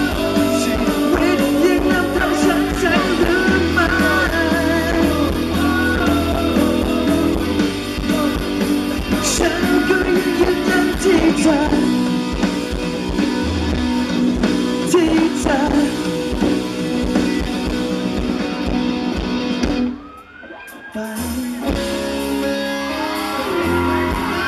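Live rock band playing, drums and electric guitar at full volume. The music cuts out suddenly for about a second near the end, then starts again a little quieter.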